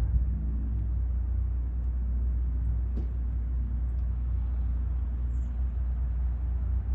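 Steady low rumble of a running engine, cut off abruptly at the end.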